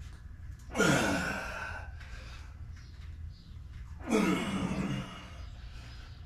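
A man's straining exhales during pull-ups: two loud groaning breaths about three seconds apart, each falling in pitch.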